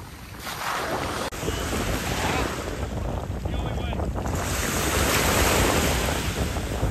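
Wind buffeting the microphone over the wash of sea water, growing louder over the first few seconds.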